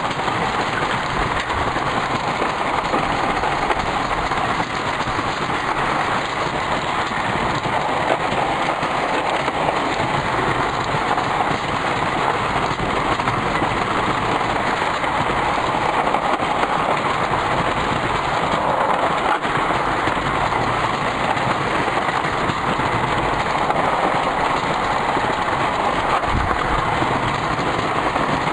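S&S Power wooden roller coaster train running at speed along its wooden track, heard from the front seat: a loud, steady rush of wheel noise.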